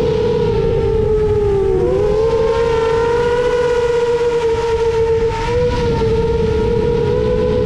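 7-inch FPV quadcopter's Emax Eco II 2806.5 motors spinning HQ 7x3.5x3 three-blade props, a steady whine that dips in pitch about two seconds in as the throttle eases, then holds. A rough rushing noise runs underneath, as heard from the onboard camera's microphone.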